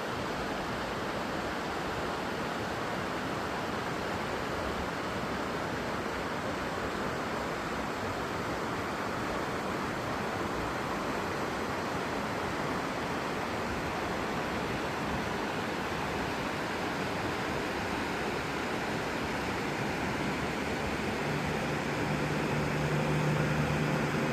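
A mountain stream rushing over rocks, a steady unbroken wash of water. About three seconds before the end, a low steady hum joins in.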